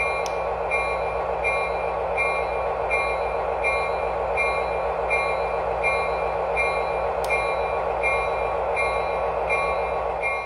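Sound system of a Lionel LionChief RS-3 diesel model locomotive, standing still, playing a steady diesel-engine rumble with a bell ringing about every three-quarters of a second.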